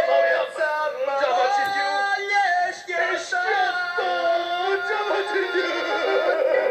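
Two men singing a comic tango duet over backing music, their voices holding and sliding between sustained notes.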